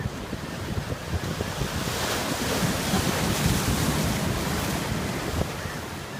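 Ocean surf breaking and washing up the beach, swelling to its loudest in the middle, with wind buffeting the microphone.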